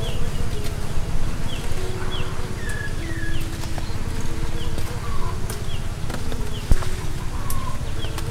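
Garden ambience: small birds giving short, falling chirps over and over, with insects buzzing steadily and a low rumble underneath, broken by a few sharp clicks.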